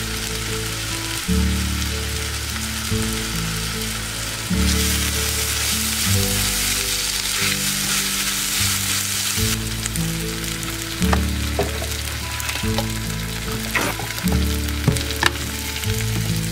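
Chopped onion and scallion sizzling in hot oil and soy sauce in a stainless-steel frying pan, stirred with a silicone spatula. The sizzle swells for a few seconds in the middle, and the spatula gives a few sharp ticks and scrapes against the pan in the second half.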